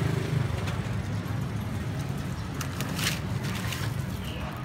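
Steady low rumble of street traffic. A few brief paper rustles and clicks come near the middle as a paper bag and the spatula are handled.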